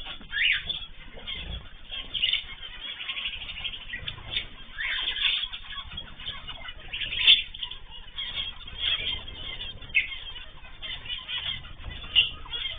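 Ornamental cage birds chirping and calling in many short, overlapping notes, with a few louder calls standing out.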